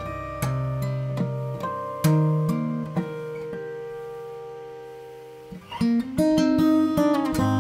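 Solo acoustic guitar played fingerstyle: a few plucked notes, then a chord left to ring and slowly fade for about three seconds, followed by a quick flurry of sharp notes near the end.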